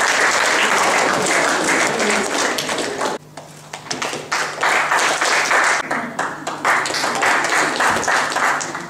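Audience applauding. The clapping breaks off briefly about three seconds in, picks up again, and fades near the end.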